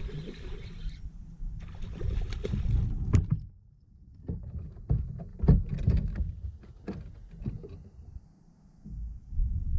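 Scattered knocks and clunks against a fishing kayak's hull, over a low, uneven wind rumble on the microphone.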